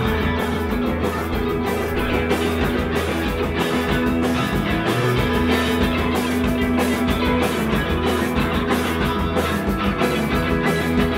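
Live punk rock band playing loudly: distorted electric guitars and a drum kit, a dense, continuous wall of sound.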